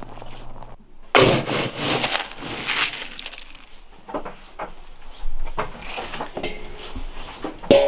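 A plastic scoop digs into feed pellets in a galvanized metal can, the pellets rattling and crunching for a couple of seconds, followed by scattered light clinks. Right at the end a galvanized metal can lid clangs and rings.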